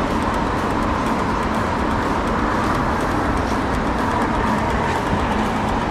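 Small boat motor running steadily, with a faint constant whine over a wash of rushing noise.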